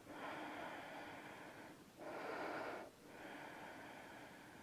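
A woman's faint, slow breathing close to the microphone while she holds a standing yoga pose: three breaths, each about a second to a second and a half long, with short pauses between.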